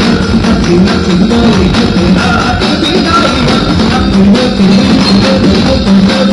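Ganamela stage troupe playing live through loudspeakers, loud and steady: a singer over drum kit, keyboards and percussion.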